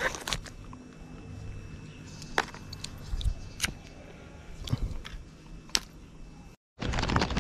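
Scattered light clicks and taps from handling a plastic lure box and fishing tackle, about one a second. The sound cuts out briefly near the end.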